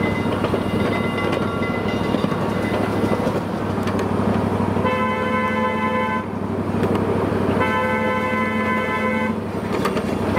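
Miniature train's horn sounding two blasts, the first about halfway through and a longer one a couple of seconds later, over the steady running of the train. A third blast starts right at the end.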